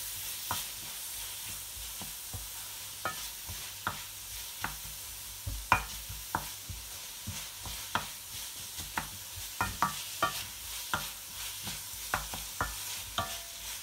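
Onions and sliced tomatoes frying and sizzling in spiced oil in a metal kadai while a wooden spatula stirs them, its edge knocking against the pan at irregular intervals.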